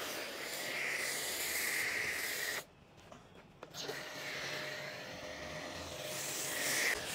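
Foam cannon on a portable pressure car washer spraying foam onto a car: a steady hiss that drops out for about a second partway through, then resumes.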